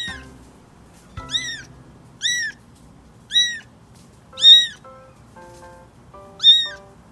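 Very young kitten meowing loudly and insistently: about six high-pitched meows, each rising then falling in pitch, the loudest about four and a half and six and a half seconds in.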